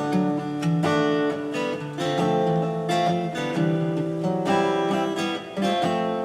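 Acoustic guitar strumming chords in an instrumental passage, with no singing.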